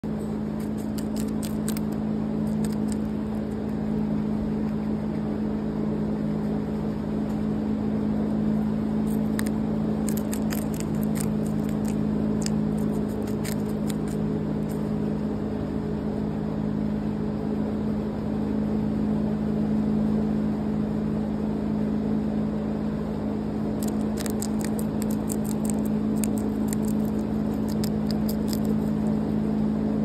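Guinea pig chewing lettuce close to the microphone: runs of quick wet smacking and crunching clicks, near the start, in the middle and again near the end, over a steady low hum.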